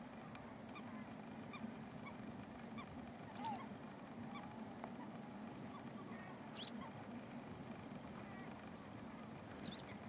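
Scattered bird calls over a steady low rumble: many faint short calls, with a sharp high call sweeping downward three times, about three seconds apart.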